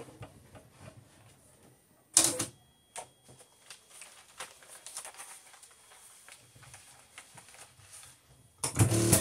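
Videojet DataFlex Plus 6420 thermal transfer printer running a print cycle, with small clicks of the mechanism and two short, loud bursts of mechanical clatter, about two seconds in and near the end. It is the printhead carriage coming down and getting stuck, a fault later put down to a worn linear slide and a loose timing belt.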